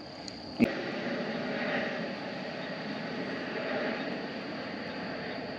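A sharp click just over half a second in, then a steady rushing noise of wind.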